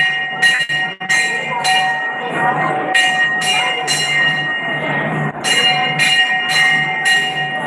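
Temple bell rung repeatedly, about two strikes a second with short pauses, its metallic tones ringing on between strikes.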